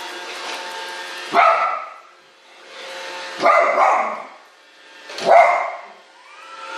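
A dog barking three times, roughly two seconds apart, at a robot vacuum cleaner. The vacuum's steady motor hum runs under the first bark and then drops away.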